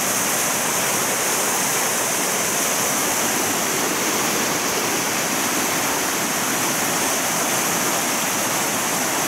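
Fast-flowing rocky mountain creek rushing over stones in a steady wash of water noise.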